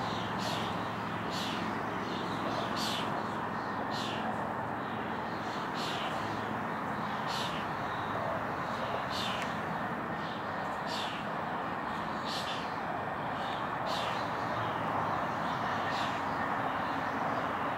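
Steady hum of distant city traffic, with short high chirps repeating about once a second over it.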